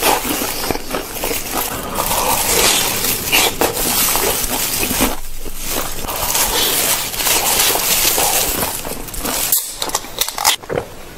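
Close-miked chewing of crispy, sauce-coated fried food: loud, dense crunching. Near the end the crunching stops and there is a sharp click as a soda can's tab is pulled.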